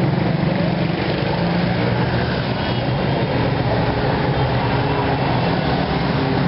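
Steady street traffic noise with a low engine hum running throughout.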